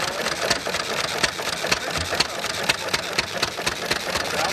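Old single-cylinder hit-and-miss engine with twin flywheels running, with an even, sharp tick about twice a second.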